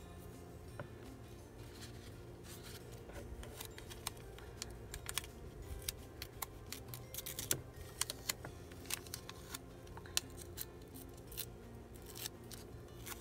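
Washi tape being pulled off its roll, torn and handled in the fingers: a scattered run of small sharp crackles and clicks that begins a couple of seconds in and goes on until near the end.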